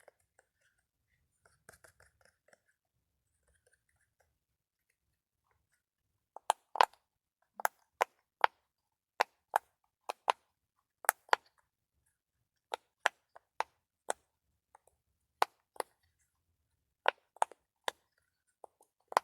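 Sharp, crisp clicks from a handheld ASMR trigger object, made one at a time and irregularly spaced at roughly two a second. They start several seconds in, after a few faint handling sounds.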